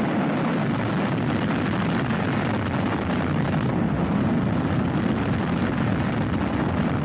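Simulated missile launch: a loud, steady rocket roar, a deep rumble with hiss over it, holding at an even level.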